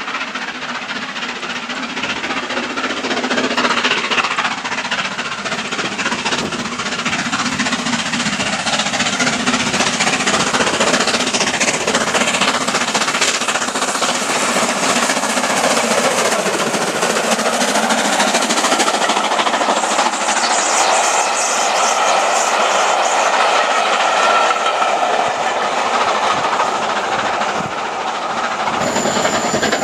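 LMS Black Five 4-6-0 steam locomotive working hard past the listener, its exhaust beats coming in a rapid stream, mixed with the rumble and clatter of its coaches on the rails.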